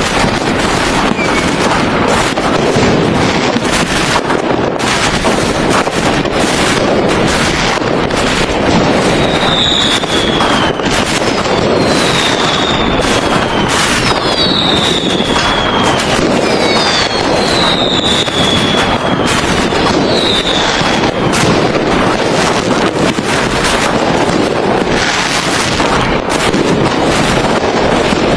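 A dense, continuous fireworks barrage: rapid bangs and crackling with no let-up. Partway through come several high whistles, each falling in pitch.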